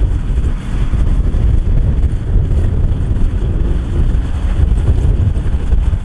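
Kubota DC108X combine harvester's diesel engine running steadily, a continuous low rumble.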